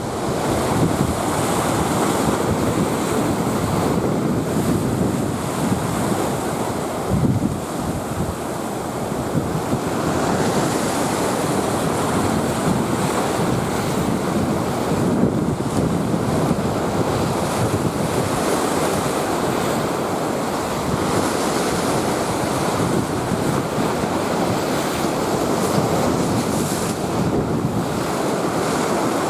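Waves of a rough, storm-swollen sea breaking and washing on a sandy beach in a steady roar, with wind buffeting the microphone.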